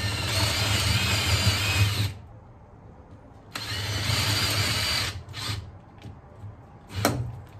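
Ryobi cordless drill boring holes into a pine block. The motor whines for about two seconds, stops, runs again for about a second and a half, then gives a short burst, with a sharp knock near the end.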